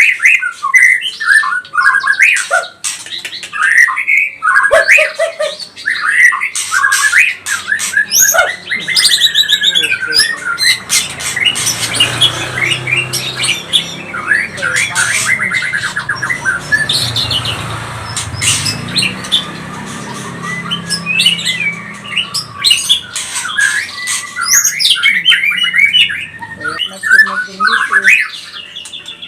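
White-rumped shama (murai batu) singing fast and excitedly: a quick run of varied whistles, trills and harsh squawking calls. From about a third of the way in to about three-quarters through, the calling turns rougher and noisier.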